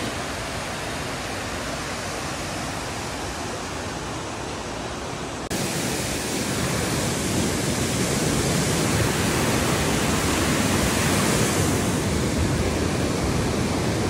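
Rushing water of a mountain stream tumbling over stepped cascades: a steady rush of falling water that jumps louder and brighter about five and a half seconds in.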